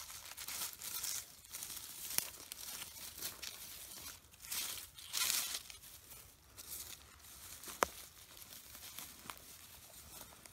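Dry leaf litter and grass on the forest floor rustling and crackling in irregular bursts as a hand holding a knife brushes through it, with a sharp click about two seconds in and a louder one near eight seconds.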